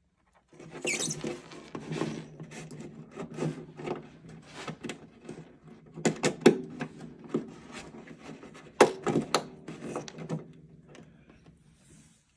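Handling noise of a harp pickup being fitted into the hole in a wooden harp's back: irregular knocks, taps and rubs of metal parts against wood. The loudest knocks come about six and nine seconds in, over a faint steady low tone.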